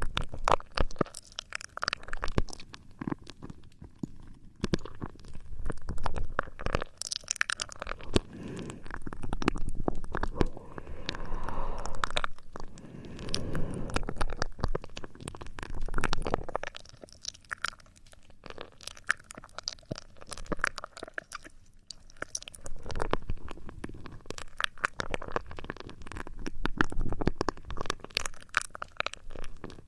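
Close-miked ASMR trigger sounds: dense crackling and scratching right at the microphone, swelling and fading every few seconds.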